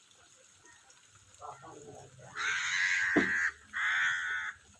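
Two loud bleats from a sheep: a long harsh one of about a second, then a shorter one just after it.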